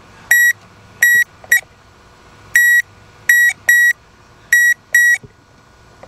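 Electrical tester beeping as its probes are touched across fuse after fuse: about eight short, high-pitched beeps at uneven intervals, each beep showing continuity through an intact fuse.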